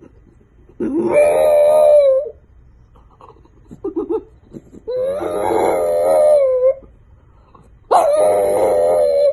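French bulldog howling: three long, held howls, each rising at the start and then level, with a few short, quiet yips between the first two.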